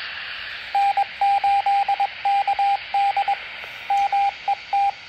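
Baofeng handheld radio speaker receiving a repeater: a steady hiss, then, from about a second in, a Morse code identification as one beeping tone of short and long beeps. It shows the transmission reached the repeater.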